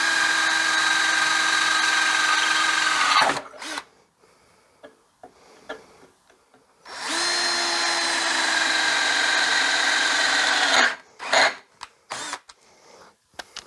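Handheld power drill with a 5 mm bit drilling through the metal strap of a welded gate cap. It runs twice at a steady, even pitch: once until about three seconds in, and again for about four seconds from about seven seconds in. A few short knocks and clicks follow near the end.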